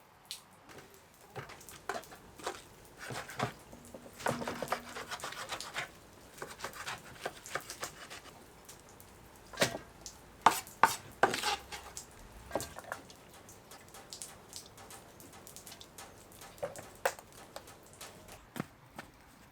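Irregular knocks and clatter of outdoor cooking preparation: dishes, pots and utensils being handled, with a denser stretch of clattering about four seconds in and the sharpest knocks around ten to twelve seconds in.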